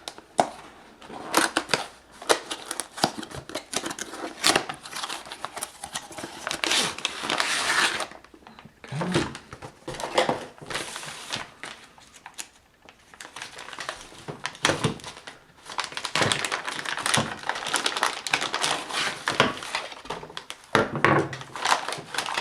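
Packaging being opened by hand: plastic and cardboard crinkling and tearing, with irregular clicks and knocks as the box and the handheld metal detector are handled.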